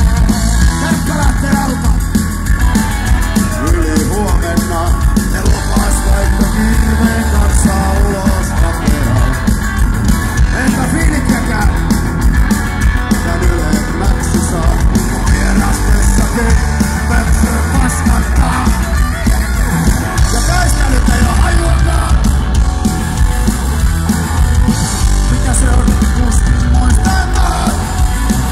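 Punk rock band playing live at full volume: distorted electric guitar and drums, with the singer yelling the vocals into the microphone.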